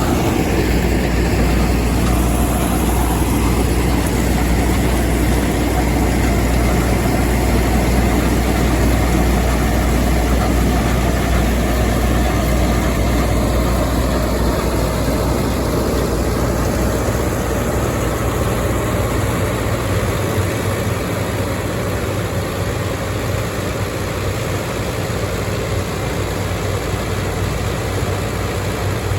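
Heavy farm machinery engine running steadily: a continuous low drone with machine noise over it. The deepest part of the hum drops away about twenty seconds in.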